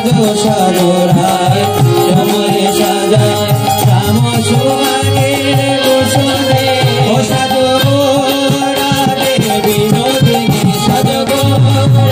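Bengali devotional kirtan music: a harmonium holding chords while a two-headed mridanga (khol) drum plays a steady rhythm and small brass hand cymbals ring with it.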